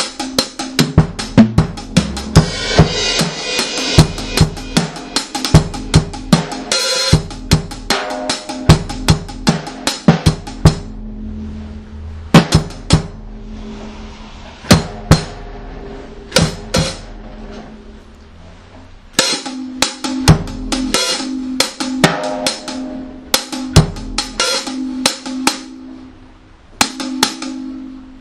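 Reggae one-drop dub track: a drum kit plays a steady beat of snare rimshots and bass drum over a held low note. About eleven seconds in, the drums drop out to a few scattered hits for several seconds, then the full beat comes back.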